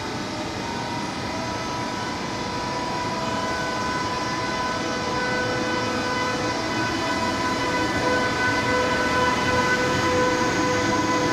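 DB class 101 electric locomotive pulling away with a train, growing steadily louder as it nears. Several steady electric whining tones from its traction converters sound over the rumble of the wheels.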